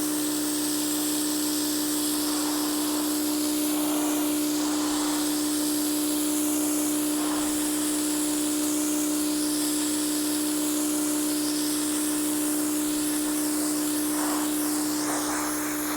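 Pressure washer running steadily, a constant-pitch motor hum under the hiss of the water spray.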